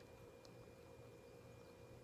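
Near silence: a faint steady hum with one tiny click about half a second in.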